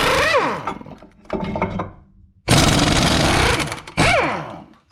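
Impact wrench running in two long bursts, about two seconds apart, each winding down with a brief falling whine, as it spins out the 19 mm brake caliper bracket bolts.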